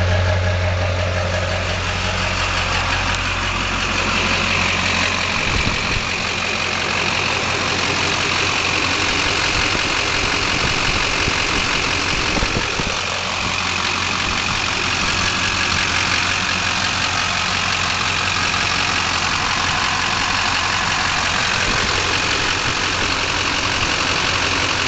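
Chevrolet LB7 Duramax 6.6-litre V8 diesel idling steadily, its deep low hum fading about five seconds in. The owner is pretty sure its injectors are on their way out, with balance rates up to 3.2 and idle rail pressure around 5500.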